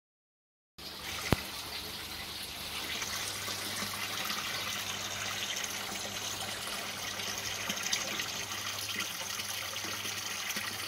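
Water trickling and splashing steadily in an aquaponics system, starting suddenly just under a second in, with a faint low hum beneath. A single sharp click sounds a little after the water starts.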